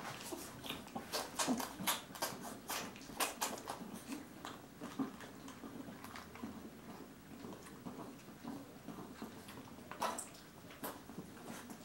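Six-week-old Bichon Frise puppies suckling at their mother: a run of short, wet sucking and smacking clicks, thickest in the first few seconds, with another cluster about ten seconds in.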